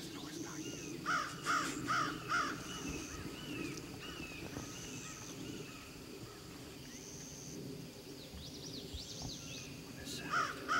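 A crow cawing four times in quick succession, and again four times near the end, over a high buzz that comes and goes.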